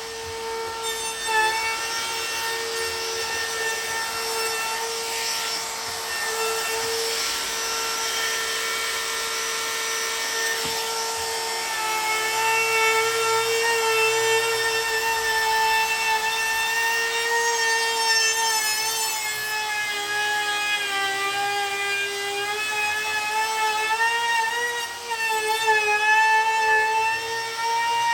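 Electric power sander running against cherry wood: a steady motor whine over a rasping hiss, its pitch wavering and dipping a few times in the second half.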